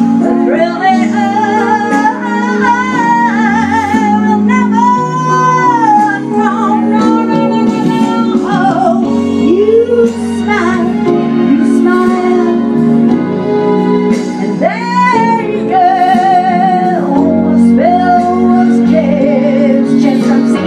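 A woman singing into a handheld microphone through a PA, with vibrato on long held notes, over steady sustained-chord accompaniment.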